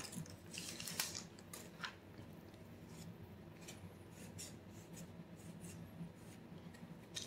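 Faint soft ticks and rustles of a stack of Pokémon trading cards handled and squared in the hands, a few in the first two seconds, then only quiet room sound with the odd light tick.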